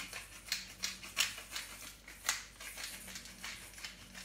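Hand-twisted pepper mill grinding peppercorns: a run of short grinding crackles, two or three a second, thinning out toward the end.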